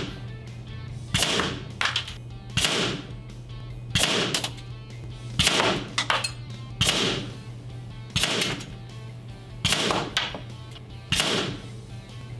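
Background music over a steady low hum, with about nine sharp, shot-like cracks evenly spaced about a second and a half apart, most followed shortly by a softer click: the reports of a PCP air pistol firing a string of shots.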